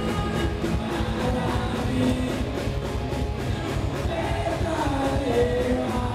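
Live pop-punk band playing: electric guitar and bass over a fast, steady drum beat, with a voice singing from about four seconds in.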